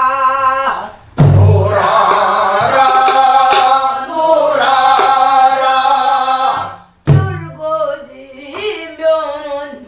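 A woman singing a Namdo folk-song line with wavering, bending pitch, marked by two strikes on a buk barrel drum, about a second in and about seven seconds in. In the middle stretch several voices sing the phrase together.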